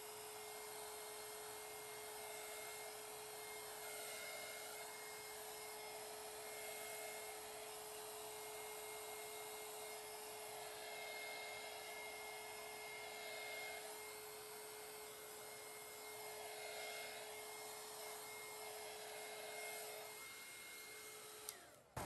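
Handheld heat gun running over wet epoxy resin, a steady blowing hum with a high whine, spreading the white resin into wave lacing. It winds down and stops near the end.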